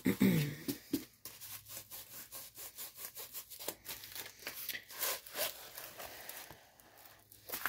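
Stiff diamond painting canvas under its plastic film rustling and crinkling as it is rolled back on a tube against its curl and then unrolled on a wooden desk, with rubbing and scraping of hands and tube on the surface.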